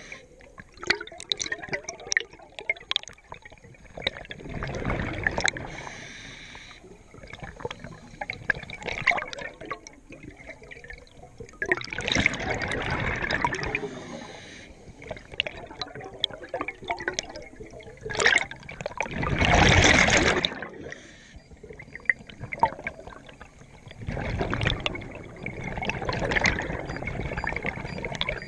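Scuba diver breathing through a regulator underwater: exhaled bubbles rush out in bursts about every six or seven seconds, with small clicks between breaths.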